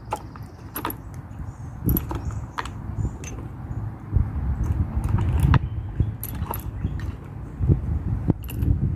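Scattered light metallic clicks and rattles of gear being handled, over low rumbling handling noise.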